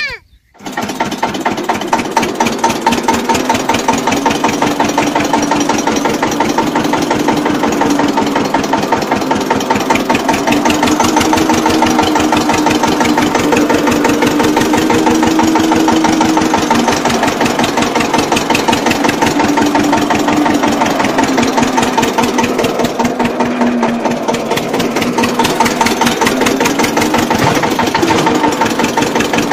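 Small engine of a mini tractor running steadily with a rapid, even chugging. Its speed rises and falls slightly as it drives.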